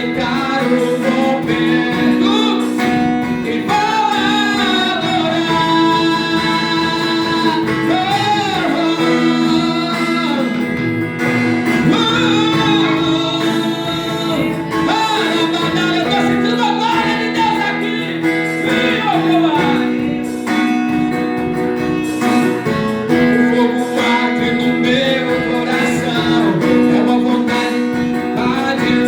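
Christian worship song: a singing voice carrying a wavering melody over held chords and guitar accompaniment.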